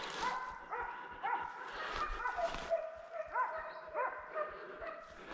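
Hunting dogs baying on a wild boar hunt: a steady run of barks, about two a second, with one longer drawn-out bay in the middle.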